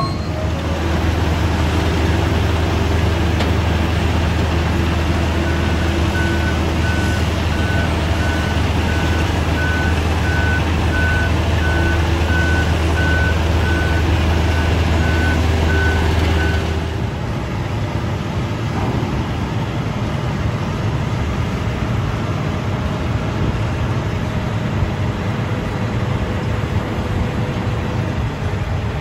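Heavy diesel construction machinery running steadily, with a back-up alarm beeping at an even pace, about one and a half beeps a second. About 17 seconds in, the beeping stops and the engine note drops to a lower, rougher rumble.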